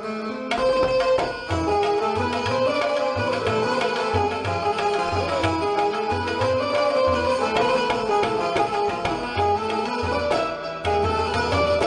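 Indian instrumental music: tabla drumming a steady rhythm under a bright plucked-string melody from a bulbul tarang.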